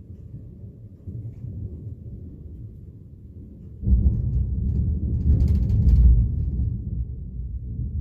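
Thunder: a low distant rumble that breaks into a loud peal about four seconds in, growing to its loudest a couple of seconds later and then rolling on.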